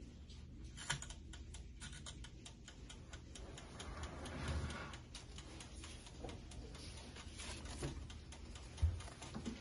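Steady ticking and clicking, typical of the waffle maker's mechanical timer dial running. Its hinged cast plates are swung open about halfway through, and there is a dull thump near the end.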